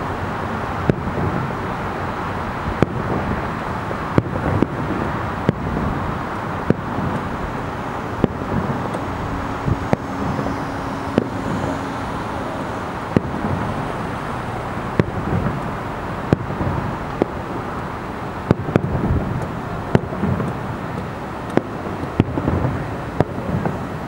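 Distant aerial fireworks bursting in rapid irregular succession, sharp bangs and cracks coming about once a second, over a steady background rumble.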